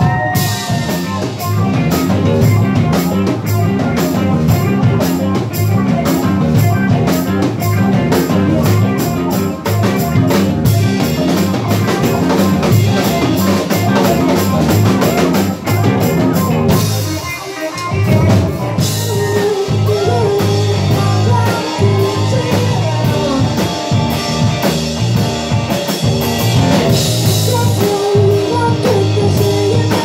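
Live rock band playing loudly: drum kit, electric guitar and bass guitar. The drums drop out briefly about seventeen seconds in, then the full band comes back.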